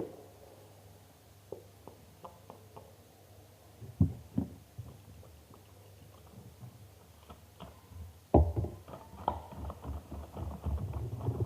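Handling noises of slime-making with glue, a bowl and a spoon: scattered light taps and clicks, a heavy thump about four seconds in and another about eight seconds in. After the second thump comes a busy run of small rapid knocks and rubbing.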